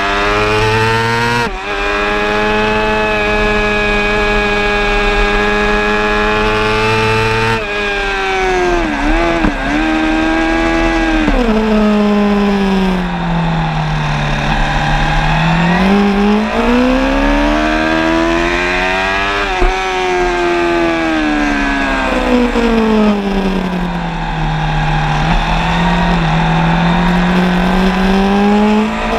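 Suzuki GSX-R 750's inline-four racing engine heard onboard at speed. It holds high revs with a brief break at a gear change about a second and a half in, then drops with a few quick blips as the bike brakes into a corner. The revs then sweep down and climb back up twice through the following corners.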